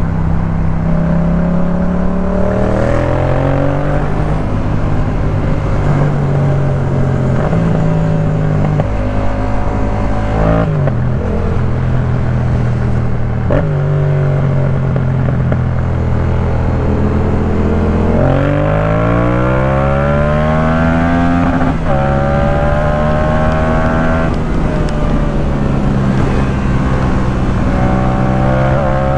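2018 Yamaha MT-07's parallel-twin engine through a Jeskap K4 full exhaust system while riding. The revs climb and drop back at upshifts several times, with steady cruising in between. The longest pull comes past the middle, rising through a few quick shifts.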